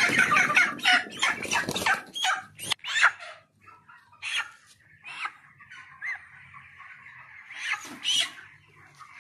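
Broiler chickens squawking loudly and scuffling for about two seconds as one bird is caught and handled, then a steady low clucking from the flock with scattered short calls. A second loud burst of squawks comes near the end.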